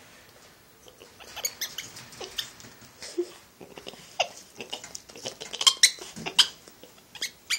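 Spider monkey giving a string of short, high squeaks and chirps, some falling in pitch, mixed with sharp clicks and taps; they start about a second in and are loudest around six seconds in.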